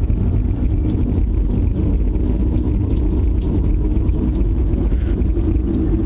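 A loud, steady low rumble with a rushing hiss above it: the unexplained noise that the household finds alarming and feels is getting very close. It does not rise or fall, and there are no separate knocks or beats.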